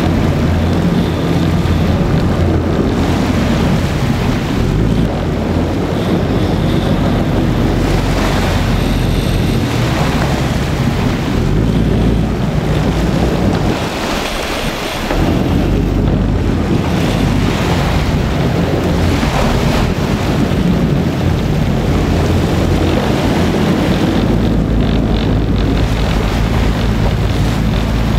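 Wind buffeting the microphone over the rush of waves and a boat's engine running steadily underneath, a loud continuous noise that dips briefly about halfway through.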